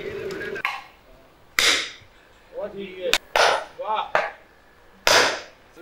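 Milk briefly pouring into a metal pot, then a sledgehammer striking steel wedges driven into a log to split firewood. There are about five blows at irregular intervals of roughly a second, some sharp and ringing, some duller and heavier.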